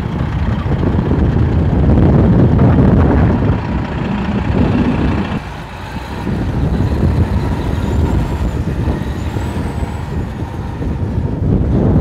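Heavy military truck's diesel engine running with a low rumble as it pulls a loaded lowboy trailer through snow.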